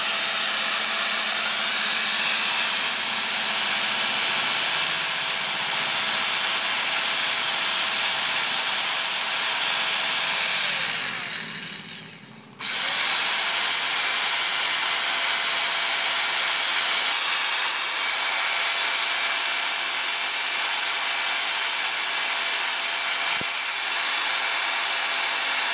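Electric hand drill running steadily with a whine, spinning a Scotch-Brite abrasive pad against a metal padlock. About eleven seconds in the motor winds down almost to a stop, then is switched back on and spins straight back up to speed.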